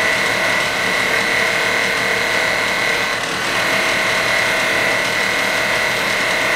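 Grinder running with a steady high whine while a piece of flat steel bar is held against the wheel and ground.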